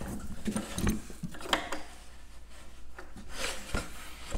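Faint rubbing and a few light knocks of parts being handled as a wheel and metal axle rod are taken off a plastic milk-crate cart.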